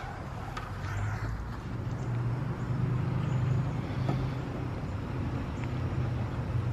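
A motor vehicle engine running with a low, steady hum that grows louder over the first couple of seconds, with a few faint clicks over it.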